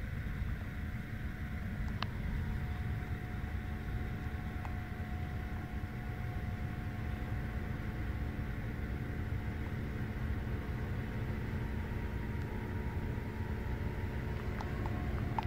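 Steady low rumble of wind on the microphone, with a faint even hum underneath and one small click about two seconds in.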